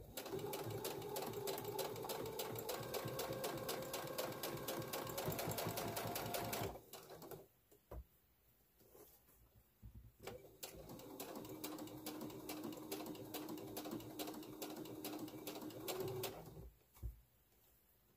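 Brother sewing machine stitching binding onto a layered fabric pad: two runs of fast needle stitching over a steady motor hum, about seven and six seconds long, with a pause and a single click between them.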